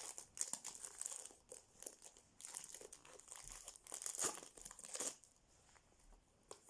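Foil wrapper of an Adrenalyn XL Premier League trading-card pack being torn open and crinkled, in irregular bursts of rustling that die down near the end.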